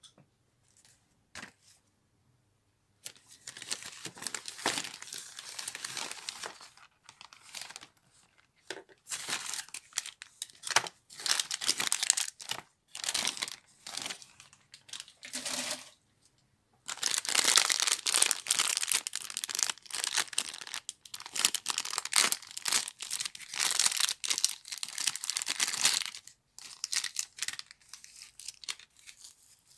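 Foil and plastic toy packaging being crinkled and torn open by hand, in repeated spells with short pauses. It starts about three seconds in and is loudest in the second half.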